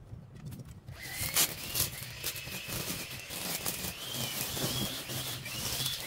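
String trimmer cutting long grass, starting about a second in: a whine that wavers in pitch as the line meets the grass, with scattered sharp ticks of the line striking stems and debris.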